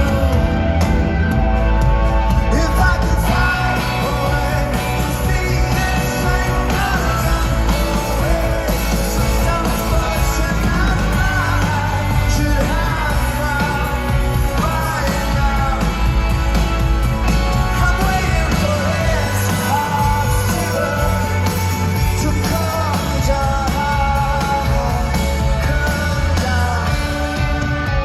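Live rock band playing loudly, with heavy bass and drums under a lead vocal that comes in a couple of seconds in.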